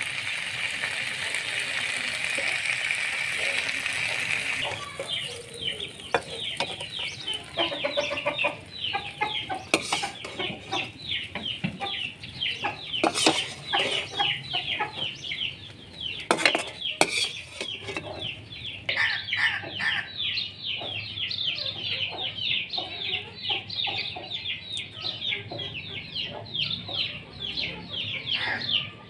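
Frying potatoes sizzling in a wok for the first few seconds. Then a fast, continuous run of high chirps from chickens, with clucking and a few sharp clicks.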